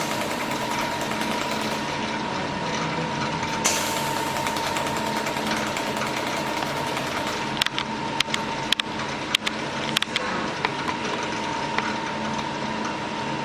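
300 W YAG laser welding machine running with a steady hum and a constant high whine. One sharp click comes about four seconds in, then a run of irregular sharp clicks over about three seconds past the middle.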